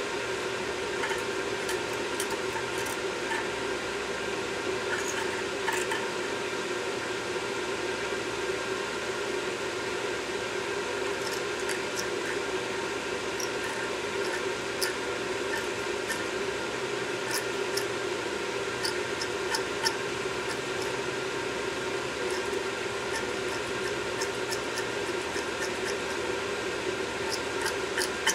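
Steady hum and hiss throughout, with scattered light clicks and scrapes as a brush and small metal tool work carbon off an EGR valve held over a metal pan.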